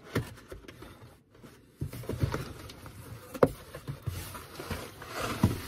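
Cardboard rustling and scraping as an inner box is worked out of a larger shipping carton, with scattered small knocks and one sharp knock about three and a half seconds in.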